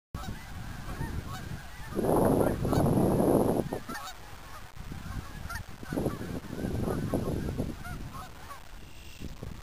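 A flock of geese calling, many short honks overlapping into a chorus that swells loudest about two seconds in and again a few seconds later.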